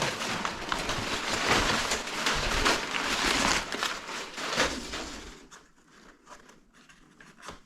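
Cardboard box and packaging rustling and scraping as they are handled and pulled open, with small knocks mixed in. About five seconds in it drops much quieter, leaving a few light clicks.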